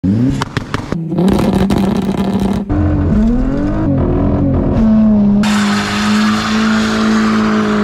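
Car engines revving in a series of abrupt cuts. From about two-thirds of the way in, one engine holds steady high revs under the loud hiss of tyres spinning in a burnout.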